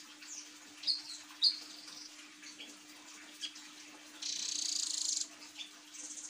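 Blue nuthatch calling: a few short, sharp high chirps in the first second and a half, then a loud rapid buzzy trill about a second long just after four seconds in, and a shorter high buzz near the end. A steady low hum runs underneath.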